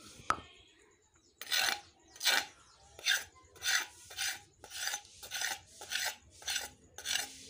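Rhythmic rasping strokes across a stone grinding slab (sil-batta), about one and a half a second, as paste is rubbed and scraped over the stone. A single sharp click comes near the start.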